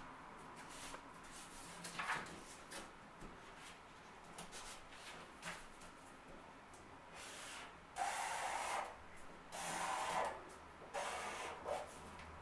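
Black marker pen drawing lines on a wall-mounted drawing surface: three scratchy strokes of about a second each in the second half, with faint taps and rubbing before them.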